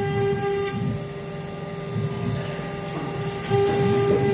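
A 2.2 kW water-cooled CNC router spindle running at high speed with a steady high whine while its 3 mm bit cuts aluminium composite panel, over an uneven low rumble from the cut. The whine weakens after about the first second and comes back strong about three and a half seconds in.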